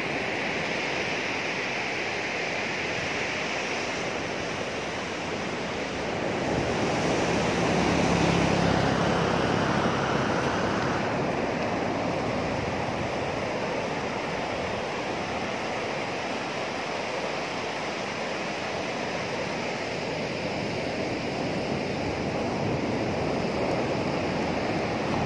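Sea surf breaking on a sandy beach, a steady rush of waves with wind on the microphone; it swells louder a few seconds in, then eases back.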